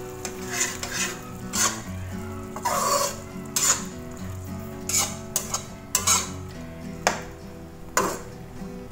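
Slotted metal spatula stirring vegetables in coconut-milk sauce in a wok, scraping and clacking against the pan in irregular strokes about once a second.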